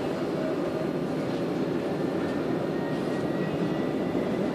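Jerusalem Light Rail tram (an Alstom Citadis) running, heard from inside the car: a steady low rumble of rolling and running noise, with a faint high whine that rises slightly.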